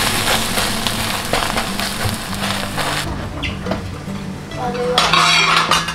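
Egg and scallions sizzling in a hot frying pan, with soft background music; the sizzle stops about three seconds in, and a brief louder noise follows near the end.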